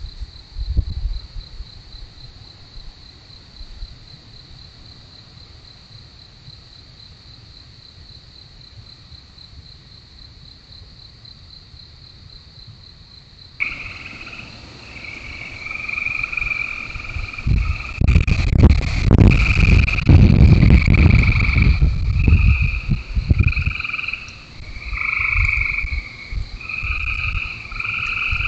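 Insects trill steadily at a high pitch, like crickets. About halfway in, the sound changes to a chorus of frogs calling in repeated short bursts. In the second half, loud uneven low rumbling and crunching noises come close to the microphone.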